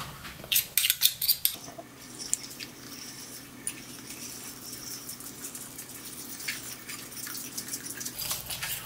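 Metal spoon and wire whisk knocking and scraping against a glass mixing bowl while a thick frying batter is mixed: a few sharp taps in the first second and a half, then a soft steady swishing with light ticks of metal on glass.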